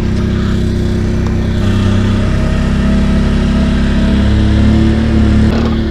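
Quad (ATV) engines running at low revs under light throttle, the pitch stepping up and down a few times, while one quad pulls another out of deep mud on a tow line.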